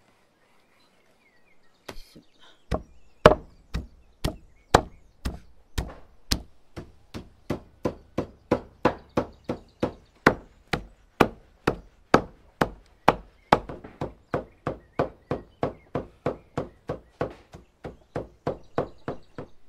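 Heavy meat cleaver chopping raw red meat on a wooden log chopping block, mincing it by hand: a steady run of sharp strikes at about two a second, starting a few seconds in.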